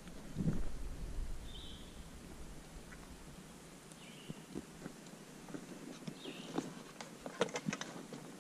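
Scattered light knocks and clicks of gear being handled on a boat deck, with a soft thump about half a second in and a quick cluster of clicks near the end. Between them, a bird gives a few short, high chirps; no motor is running.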